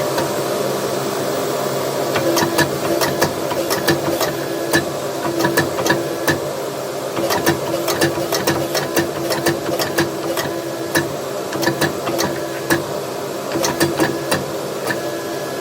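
Hammer blows on hot 5160 steel bar being rough-forged into a walling hammer head. Sharp metallic strikes come in quick, irregular runs starting about two seconds in, over a steady mechanical hum.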